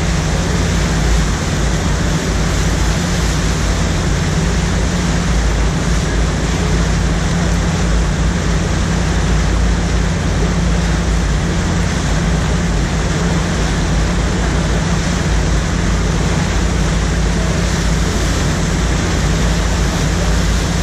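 Loud, steady rush of churning whitewater from an artificial standing surf wave, with a steady low hum underneath.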